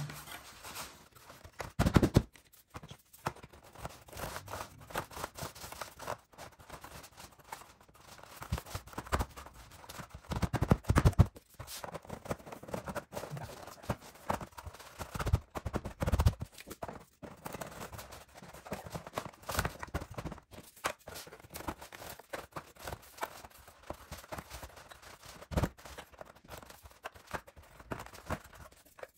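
Thin slotted wooden pieces clicking, knocking and scraping against each other as they are wiggled, jiggled and tapped down into their interlocking slots. The knocks come irregularly, with a few louder ones about two seconds in and again around ten to eleven seconds in.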